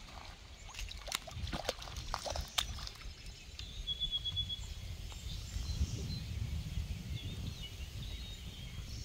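A hooked fish splashing and thrashing in the shallows at the water's edge as it is landed by hand, with a cluster of sharp splashes in the first few seconds. A low steady rumble runs underneath.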